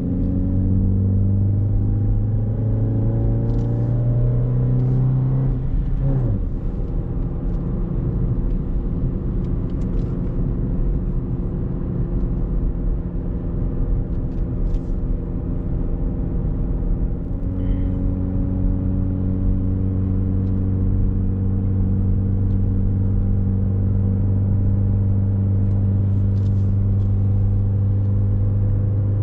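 Chevrolet Beat's four-cylinder petrol engine, fitted with a K&N air filter, pulling the car up a steep climb. The revs rise for about the first six seconds and drop sharply at a gear change. The engine then runs steadily under load, with its note growing stronger about two-thirds of the way in.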